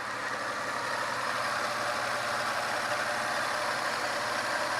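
2002 Toyota 4Runner engine idling steadily at operating temperature, its newly installed remanufactured transmission running quiet.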